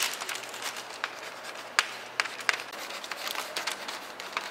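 Pen scratching and tapping on a large paper sheet, with the sheet crinkling under the hand: a string of short, irregular scratchy clicks.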